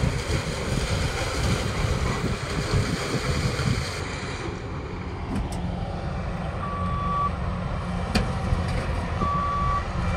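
Farm machinery engines running with heavy rumbling noise, then a steadier distant drone with a reversing alarm beeping twice, long single beeps about two and a half seconds apart, from the sugarcane harvester and its infield tractor working the cane field. A single sharp click comes between the two beeps.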